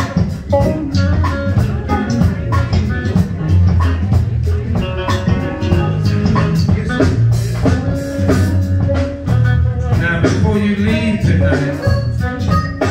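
Live band playing: electric guitar and bass guitar over a steady beat.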